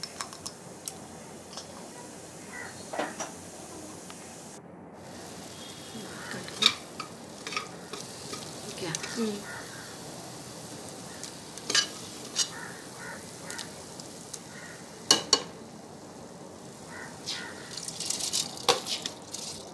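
Spice masala sizzling in a pressure cooker pot as a spatula stirs it, with sharp scrapes and clicks of the spatula against the pot every second or two. Near the end a quick patter as soaked rice is tipped into the pot.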